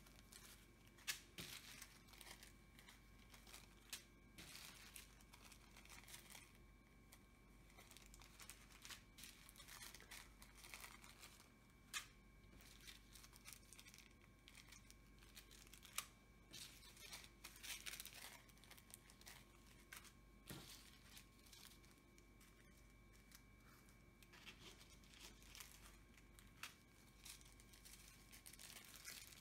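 Faint crinkling of small plastic zip-lock bags of diamond-painting drills being handled and laid down, with a few sharp clicks.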